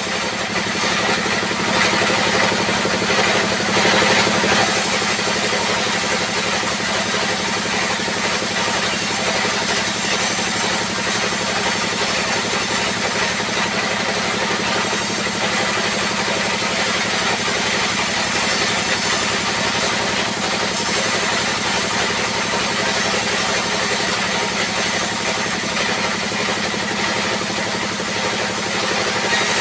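Sawmill saw and its engine running steadily, with a constant hum and a high hiss, while rough log slabs are fed through the blade.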